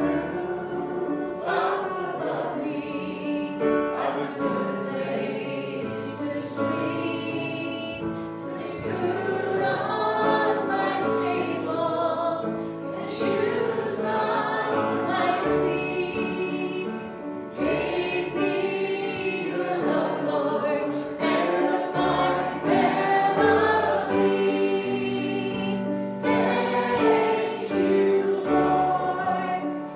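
Choir singing a gospel hymn with instrumental accompaniment.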